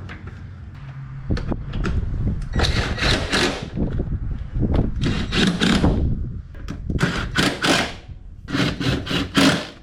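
Knocking and clattering of parts and tools as a cover is fitted back on in the wheel area, in several dense bursts of rattling about a second long each.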